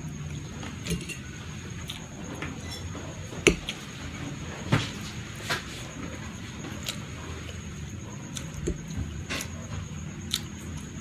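A metal fork clinking and scraping now and then against a ceramic plate as fettuccine is twirled up and eaten, the loudest clink about three and a half seconds in, over a steady low background rumble.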